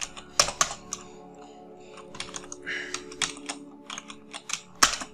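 Typing on a computer keyboard: irregular key clicks, with a couple of harder strokes about half a second in and near the end.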